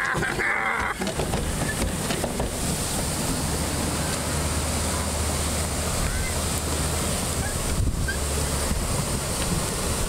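Steady rushing noise of wind and water on open water, with wind buffeting the microphone.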